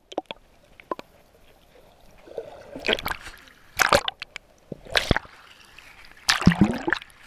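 Sea water splashing around a camera at the surface as it goes under and comes back up: four short splashes about a second apart, the last one the loudest.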